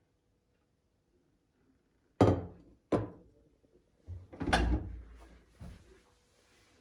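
Knocks and thumps of a dishwasher being handled: two sharp knocks under a second apart, then a heavier thump with a short rattle, and a last small knock.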